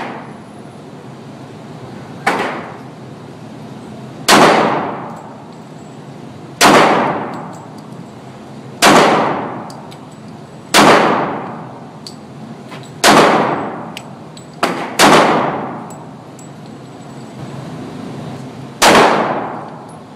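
Pistol shots fired one at a time, about nine in all, mostly about two seconds apart with a quick pair in the second half. Each is a sharp crack followed by a long ringing decay.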